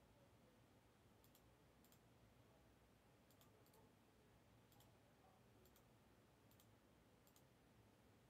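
Near silence with faint computer mouse clicks, many as quick double-clicks, about once a second or so.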